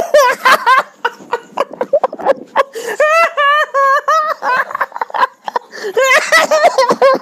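High-pitched laughter while someone is tickled: giggles in quick runs of 'ha' syllables, about four a second, with the clearest runs about three seconds in and again near six seconds.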